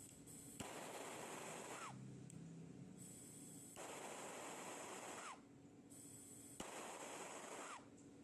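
Victor Turbo Torch propane/LPG torch flame hissing in stretches that start and stop several times, with a sharp click at some starts and brief whooshing pitch sweeps, the swirl-flame torch being lit and shut off.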